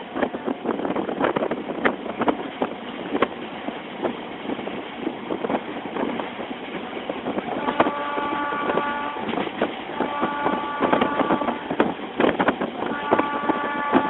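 DEMU train running on the rails, a steady rumble full of clicks and rattles, heard at an open coach window. In the second half a train horn sounds three times, each blast about a second and a half long, with short gaps between them.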